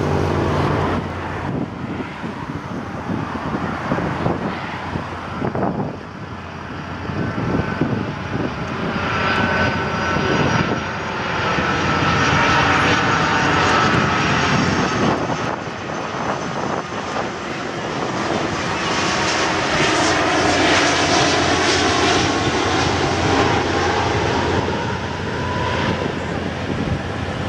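Airbus A330-243 airliner on final approach, its two Rolls-Royce Trent 700 turbofans running with a steady jet rumble. A high fan whine comes in about a third of the way through, and the sound grows louder as the aircraft draws near.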